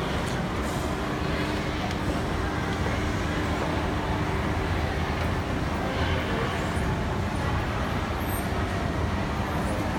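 Steady low hum and noise of a moving escalator, mixed with the even background din of a large shopping mall.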